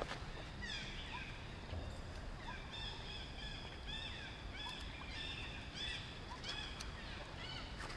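A string of short, high-pitched animal calls, each rising then falling, repeated in quick series over a steady low rumble.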